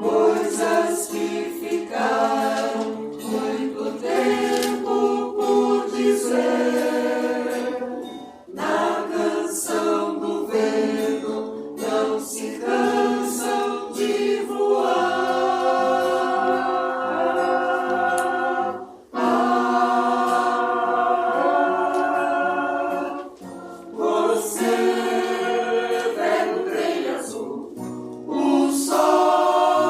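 Choir singing in parts during rehearsal, several voices holding and moving pitches together, with a few brief breaks between passages.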